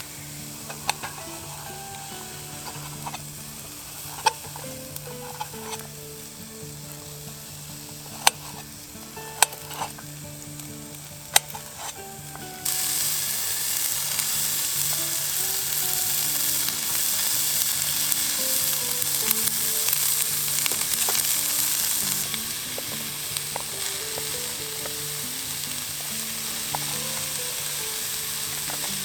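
Food frying in a pan over a wood fire. A few sharp metal clinks come first, then about halfway in a loud sizzle starts suddenly as food meets the hot pan, easing somewhat about ten seconds later and carrying on.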